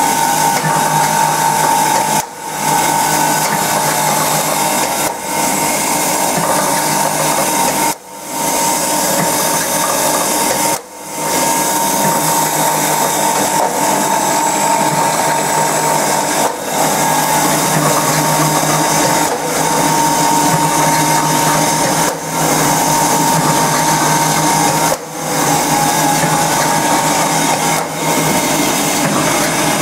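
Automatic welded wire mesh machine running: a loud, steady mechanical noise with a steady whine, dropping away briefly every few seconds.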